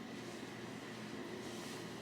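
Quiet room tone: a faint steady hum and hiss with no distinct sounds.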